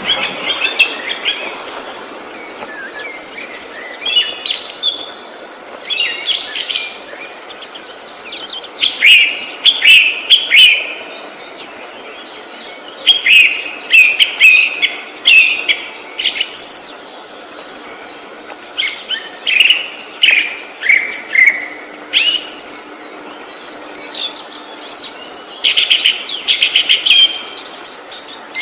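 A songbird singing loud, fast phrases of whistled and trilled notes, each lasting one to three seconds and repeated every few seconds, over a steady background hiss.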